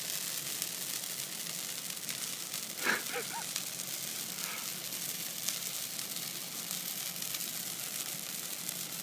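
Christmas tree burning in a metal fire pit: a steady hiss full of sharp crackles and pops. A short vocal sound cuts in about three seconds in.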